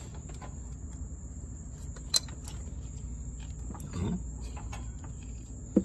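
Handling noise from work on a Toyota Camry's shifter cable linkage, with two sharp metallic clicks, one about two seconds in and one at the end, as a C-clip is worked onto the shifter cable bushing.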